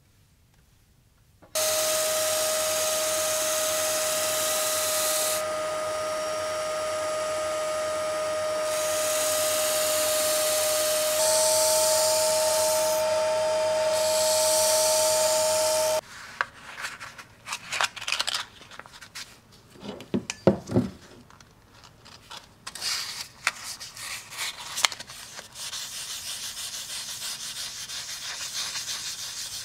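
Belt grinder running with a steady hum and a grinding hiss that comes and goes as the steel hammer head is ground. It stops about halfway, followed by irregular clicks and scrapes, then steady hand-sanding of the steel head with abrasive paper.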